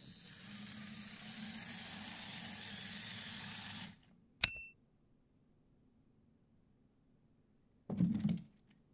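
Six-wheeled Lego Technic vehicle driving on soap-wetted glass: its electric motor and gear train whir with a steady hiss, then cut off suddenly about four seconds in. Half a second later there is a single sharp click with a short ring, and near the end a brief burst of motor whir.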